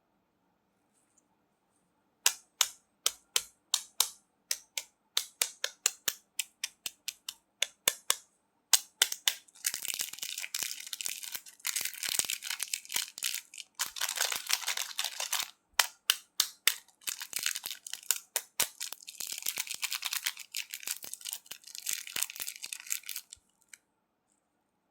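Close-miked candy crunching. First comes a run of separate sharp cracks, about three a second. Then dense crackling crunches follow in bursts of a few seconds each, and they stop shortly before the end.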